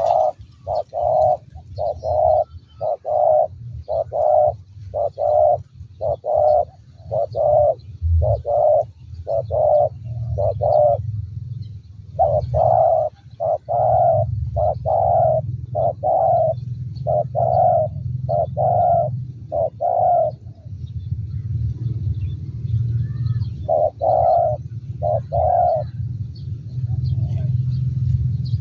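Spotted dove giving a fast run of short, low coos, about two a second. There is a brief break near the middle, then a pause of a few seconds before a short last run. A low steady rumble runs underneath.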